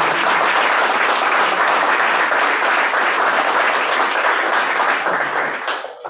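Audience applauding, a roomful of steady clapping that dies away quickly near the end.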